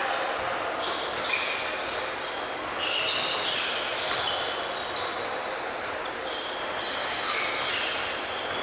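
A basketball game on a hardwood gym floor: sneakers squeak again and again as players run and cut, and the ball bounces on the boards, all in a large gymnasium.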